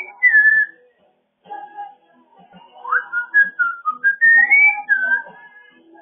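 African grey parrot whistling a tune: a falling whistled note at the start, a short pause, then a run of rising and falling whistled notes.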